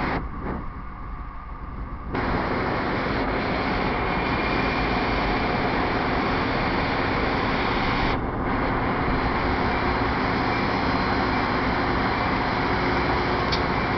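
Steady rumble and hum of a Metra bilevel commuter train with its diesel locomotive running, standing at or easing along the platform. The sound drops briefly near the start, then holds even.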